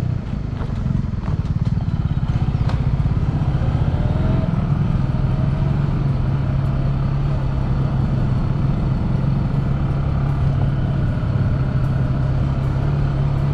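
Motorcycle engine running steadily on the move, with an even pulsing exhaust note that picks up about a second in.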